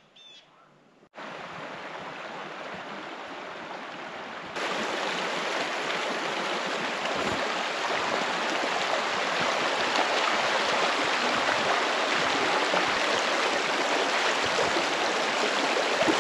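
Shallow mountain creek rushing steadily over a stony bed. It starts about a second in and gets louder about four and a half seconds in.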